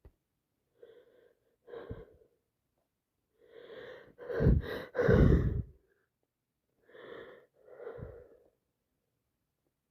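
A woman with a heavy cold taking short gasping breaths, then sneezing loudly about halfway through, followed by two more gasping breaths.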